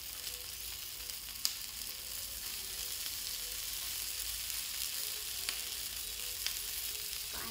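Sausages sizzling in cooking oil on a hot flat grill pan: a steady high hiss with a few sharp clicks and pops.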